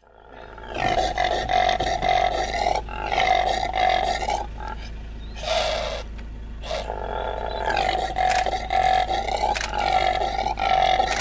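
Impala ram roaring, as in the rut: a run of about six loud calls, each a second or two long with short breaks between.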